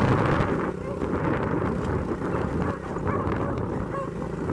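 Engine of a small ridden vehicle running steadily at speed, with wind rumble on the microphone. A few faint dog yips come in the second half as beagles chase alongside.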